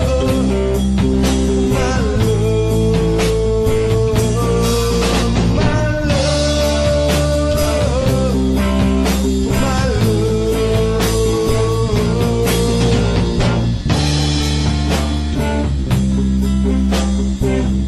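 Rock song in an instrumental passage without lyrics: a sustained, pitch-bending lead line over bass and a steady drum beat.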